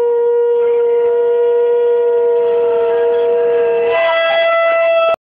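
Conch shell blown in one long steady blast with a rich, buzzy overtone series. A second, higher note joins about a second in, the lower note drops out near the end, and the blast cuts off abruptly.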